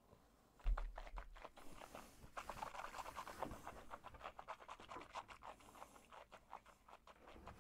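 Tasting glass set down on the table with a soft knock about a second in, then a run of faint, quick wet smacks of lips and tongue as a sip of undiluted cask-strength whiskey is worked around the mouth.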